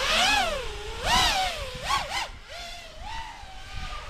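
5-inch FPV freestyle quadcopter (ImpulseRC Apex) with its brushless motors and propellers whining as the throttle is blipped. The pitch rises and falls in swells: a big one about a quarter second in, another about a second in, two quick blips near two seconds, then smaller swells.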